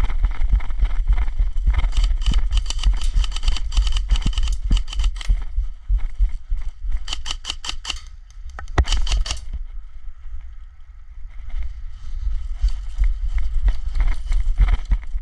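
Dense crackling and clicking over a low rumble on the microphone, with short runs of rapid, evenly spaced clicks about seven and nine seconds in. It goes quieter for a couple of seconds after that.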